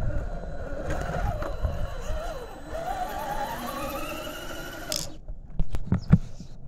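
Whine of a 1/10 scale RC rock crawler's 550 brushed electric motor and geartrain under throttle, wavering in pitch and then rising as the truck climbs and drives off. It cuts off suddenly about five seconds in, and a couple of short knocks follow.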